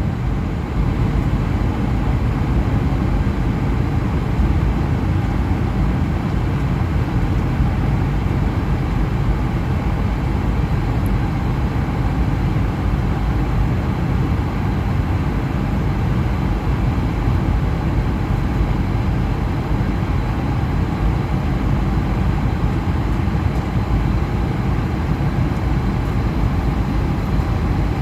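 Jet engine noise from a departing Airbus A220-100 airliner, whose Pratt & Whitney PW1500G geared turbofans make a steady, deep rumble.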